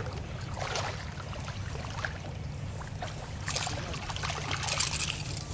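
Water splashing and gurgling at the surface as a small European sea bass is reeled in on a lure, with the splashes strongest a little past halfway, over a steady low rumble.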